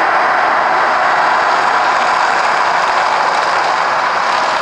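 Steady rushing roar from the Mirage volcano attraction's gas flames and cascading water. It eases slightly toward the end as the last flames die out.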